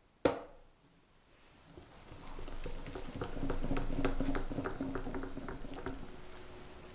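A single sharp knock just after the start, then, from about two seconds in, a balloon whisk stirring whipped cream into a yolk mixture in a glass bowl: quick, irregular clicks of the whisk against the glass over a soft swishing, fading out near the end.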